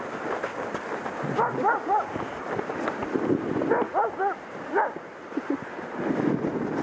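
Sled dogs barking and yipping in short clusters, a few quick calls about a second and a half in and another run of them around four seconds, over steady wind noise.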